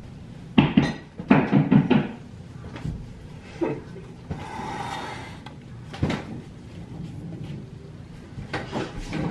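Household objects being handled: a series of sharp knocks and clatters, loudest in the first two seconds, with a few single clicks later and a short hiss about halfway through.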